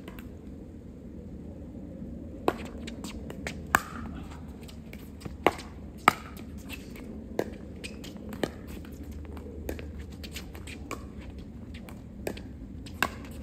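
Pickleball rally: paddles striking the plastic ball in a quick series of sharp pops, about eight hits spaced roughly a second apart, some loud and others fainter, starting a couple of seconds in.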